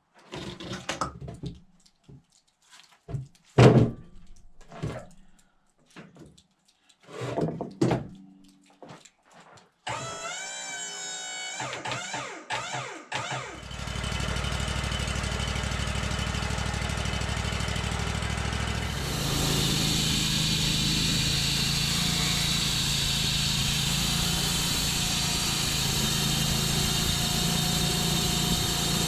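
Knocks and thuds as the maple burl is turned over and clamped on the Wood-Mizer sawmill, then the sawmill's engine starts about fourteen seconds in and runs steadily, getting louder about five seconds later.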